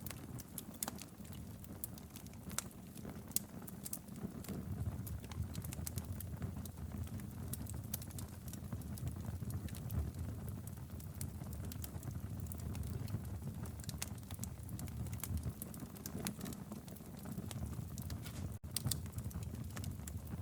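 Wood fire burning in a fireplace: a steady low rumble of flames with scattered sharp crackles and pops from the burning logs.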